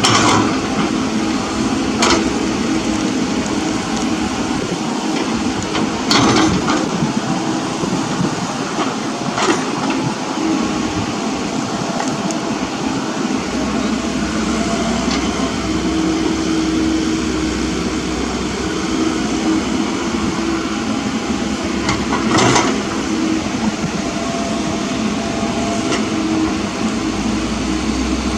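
Komatsu mini excavator's engine running steadily while it digs, with a handful of sharp knocks scattered through.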